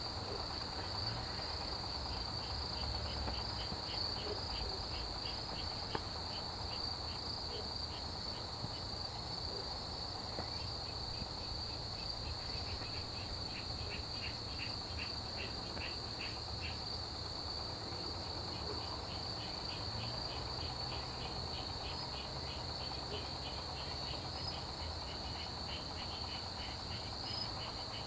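Chorus of autumn grass insects such as crickets: one steady high trill, with rapid, evenly pulsed chirping from other insects layered over it, and a faint low rumble underneath.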